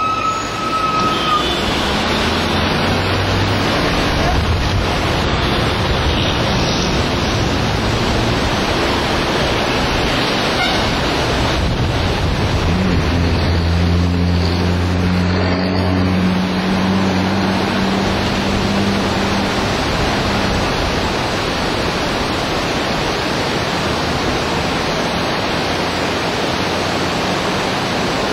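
Steady, loud rush of whitewater from a river rapid. A horn fades out about a second in, and a low hum rises over the water for several seconds in the middle.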